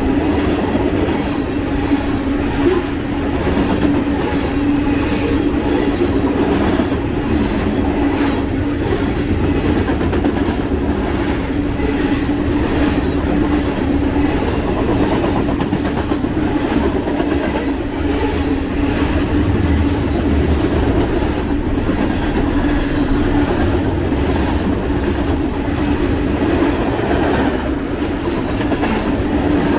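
BNSF freight train's cars rolling past at speed, the wheels clacking steadily over the rail joints over a constant rumble and hum.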